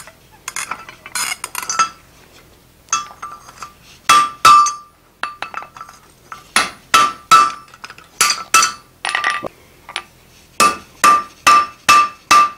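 Hand hammer striking hot steel on a blacksmith's anvil, the anvil ringing after each blow. Light clinks of tongs and tools come first, then scattered blows, and near the end steady hammering at about two blows a second.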